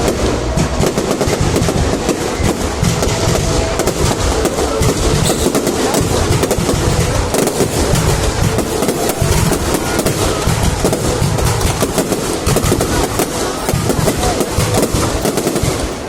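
A fireworks display going off without pause: a dense, rapid crackle of bursts and reports, steady and loud throughout.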